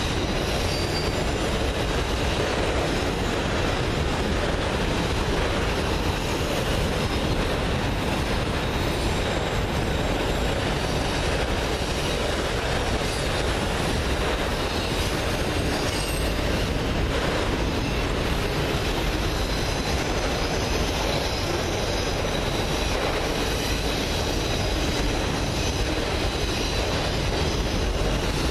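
CSX freight train of autorack cars rolling past: a steady rumble of steel wheels on rail, with a faint high-pitched wheel squeal over it.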